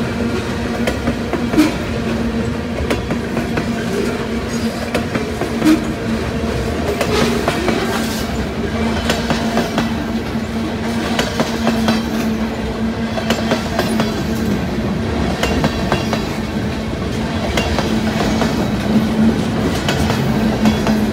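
Freight train cars rolling past close by. Steel wheels click irregularly over rail joints, over a steady rolling rumble and a constant low hum.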